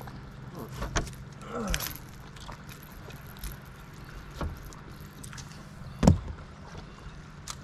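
Steady low hum of a boat's motor running, with a few knocks and clunks of gear being handled in the boat; the loudest knock comes about six seconds in.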